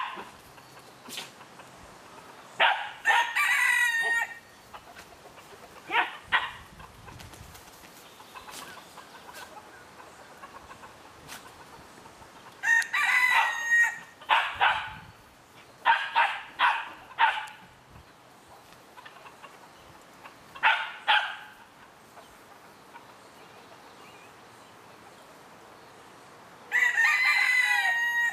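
Roosters crowing: three long crows roughly ten seconds apart, with short clucking calls in between.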